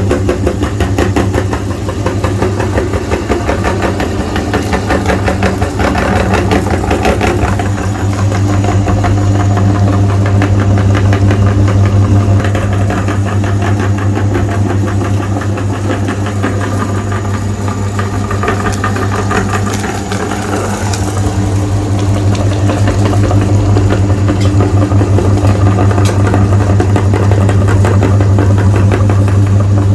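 Electric meat grinder running with a loud, steady motor hum, grinding Magnum ice cream bars.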